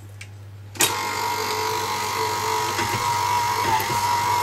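KitchenAid Artisan stand mixer starting with a click about a second in, then its motor running steadily with a constant hum as the dough hook kneads donut dough with the butter worked in.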